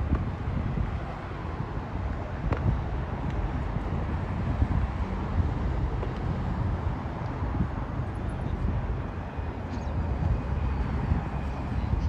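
Outdoor walking ambience: a steady low rumble with wind buffeting the microphone.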